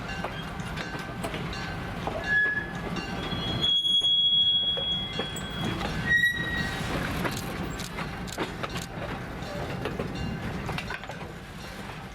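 Train rolling past on steel rails: wheels clicking over rail joints over a steady rumble, with a few high-pitched wheel squeals, the longest lasting about two seconds.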